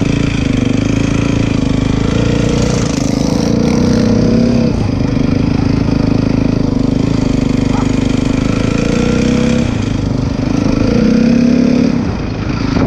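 Honda CRF 450 dirt bike's single-cylinder four-stroke engine running under way, revving up and easing off a few times, with a rise about two seconds in and another near the end before it drops back.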